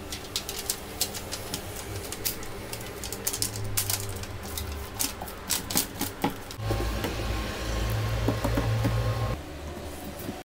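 Aluminium foil crinkling and crackling as hands fold and press it into a cut-out opening in a board, with many sharp irregular clicks and taps. About two thirds of the way through, a steady low hum comes in for a few seconds and then stops.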